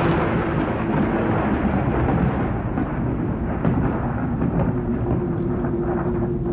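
A rumble of thunder that rolls and slowly dies away over several seconds. A steady low drone holds underneath it.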